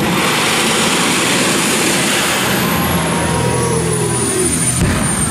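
Jet-turbine engine of a jet-powered golf cart running as the cart drives past: a loud, steady rushing noise with a high whine that rises in pitch and then falls.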